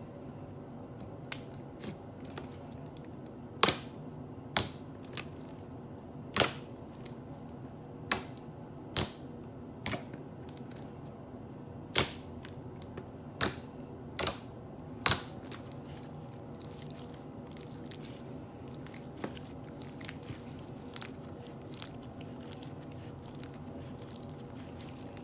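Thick, glossy slime being played with by hand, giving sharp bubble pops at irregular intervals, about one a second at first and sparser and fainter after about fifteen seconds.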